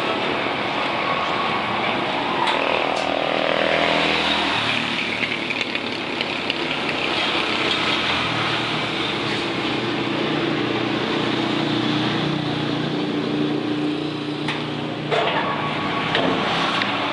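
Drum mixer machine running: a steady mechanical drone whose pitch shifts about four and a half seconds in.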